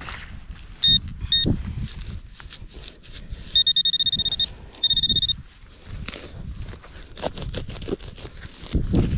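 Metal detector giving high-pitched electronic tones over a target: two short beeps about a second in, then two longer steady tones a few seconds later. Low rustling and knocks of digging and handling soil fill the gaps.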